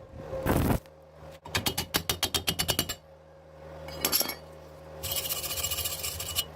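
Metal workshop sounds: a loud knock, then a rapid run of sharp metal taps for about a second and a half, another knock, and a crackling hiss near the end.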